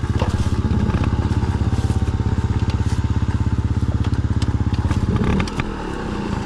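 Small dirt bike engine idling with a fast, even beat; about five seconds in the steady beat breaks up and the sound turns uneven as the bike is worked over the slope. Dry leaves crackle underfoot and under the tyres.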